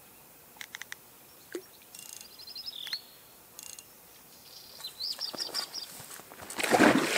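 Small birds chirping in short repeated phrases, then loud water splashing at the bank near the end as a hooked grass carp is brought to the landing net.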